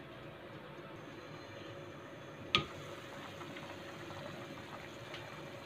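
Faint, steady bubbling of chicken broth coming to a boil in a pot, with one sharp click about halfway through.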